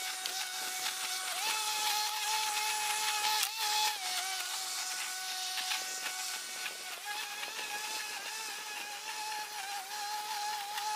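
Walk-behind lawn mower running while cutting tall grass: a steady whining hum with a hiss of cut grass over it, its pitch stepping up or down a few times as the load changes.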